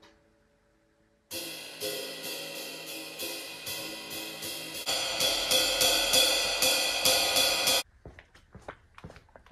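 A band playing, with drum-kit cymbals and hi-hat keeping time over held notes from pitched instruments. It starts suddenly about a second in, gets louder about halfway, and cuts off abruptly near the end, leaving a few light knocks.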